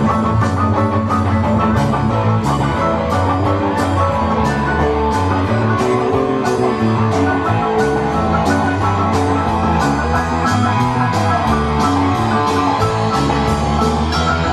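Live rock band playing: electric guitars and bass over a steady drum beat.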